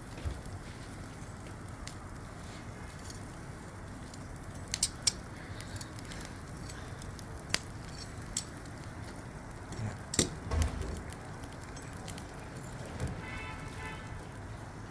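Charcoal barbecue fire with fish grilling over it: a steady hiss with a few scattered sharp crackles and pops.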